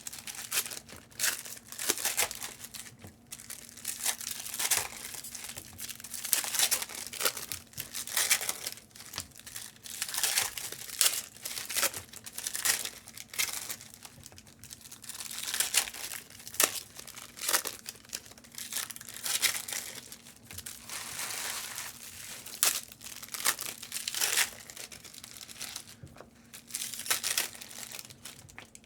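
Trading-card pack wrappers crinkling and tearing as retail packs are ripped open one after another, in irregular bursts, over a faint steady hum.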